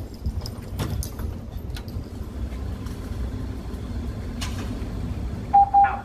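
Steady low mechanical rumble, most likely an indoor range lane's motorized target carrier running as it is worked from the booth control, with a few light clicks. Near the end come two short, loud beeps.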